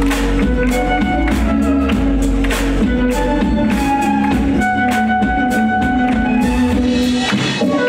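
Violin duo playing a melody over drums and a DJ's backing track, with a steady beat and heavy bass.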